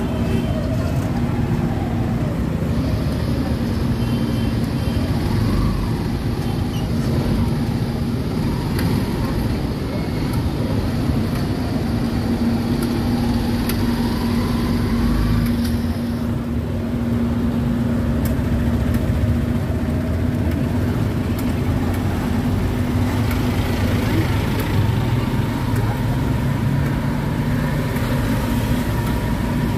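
Motorcycle tricycle engine running with a steady hum while on the move, heard from inside its sidecar, over road and street-traffic noise.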